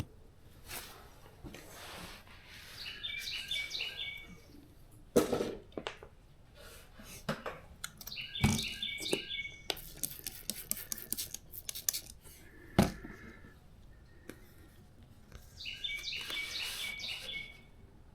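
A songbird sings the same short phrase three times, several seconds apart, over scattered knocks, a quick run of clicks and rustling from hands-on work.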